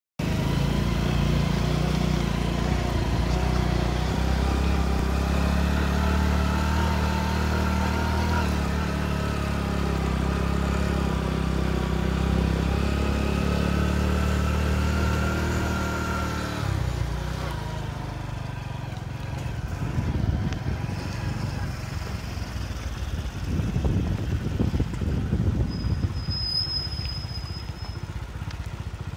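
A motor engine running steadily with a low hum and wavering whine, cutting off abruptly about seventeen seconds in. After that, uneven low rumbling comes in gusts, with one short high tone near the end.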